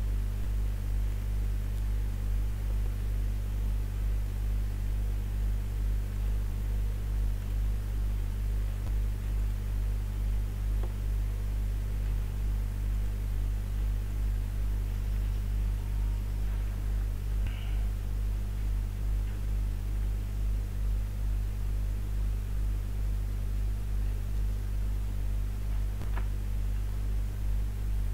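Steady low electrical hum under a faint hiss, with two faint ticks in the second half.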